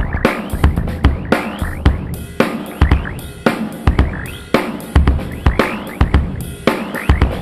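Sampled acoustic drum kit (kick, snare, hi-hat and cymbals) finger-drummed live on Maschine pads, a loose, freeform beat with a kick or snare hit roughly every half second.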